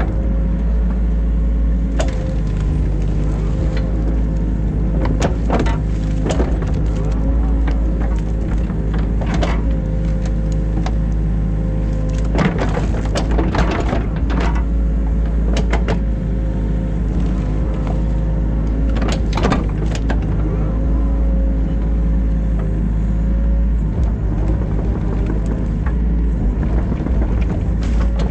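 New Holland Kobelco E50.2 mini excavator running steadily at working revs, its engine and hydraulics droning, with a pitched line that shifts slightly as the machine is worked. Irregular knocks and scrapes break in several times, with a cluster around the middle.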